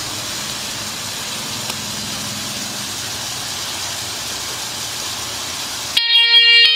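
A steady hiss-like noise, like distant traffic or outdoor ambience, in a break in the song. Near the end, sustained keyboard chords cut in abruptly.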